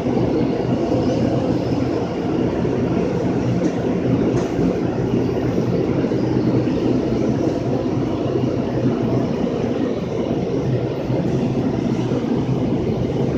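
Automatic car wash tunnel running: big rotating cloth brushes scrubbing a soapy vehicle, with water spraying. A steady rumbling wash of noise with a low machine hum underneath.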